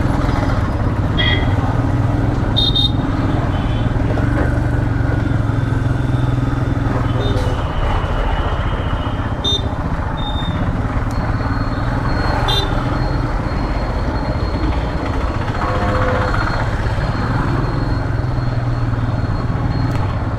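Royal Enfield Himalayan 411 motorcycle's single-cylinder engine running steadily under way, with a few short horn toots from traffic.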